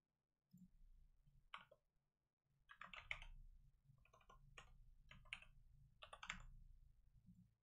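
Typing on a computer keyboard: faint, irregular bursts of keystrokes, with the busiest flurries about three and six seconds in.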